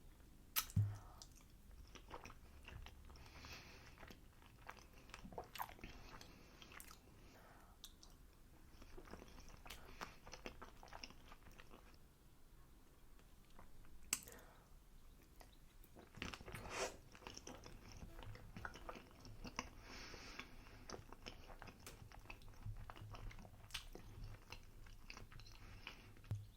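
Close-up chewing and biting of pancakes: soft, wet mouth sounds and smacks with scattered clicks. A few sharper clicks stand out about a second in, around the middle and near the end.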